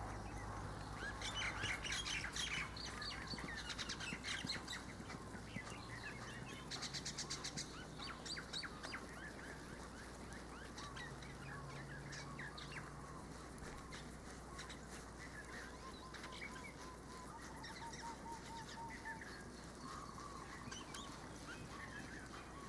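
Several birds chirping and calling, busiest in the first third, with a fast trill about seven seconds in and a short series of repeated lower notes about three quarters of the way through.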